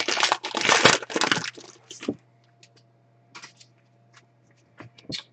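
A foil trading-card pack being torn open and crinkled, a run of dense crackling for about two seconds. A few faint clicks follow as the cards are handled.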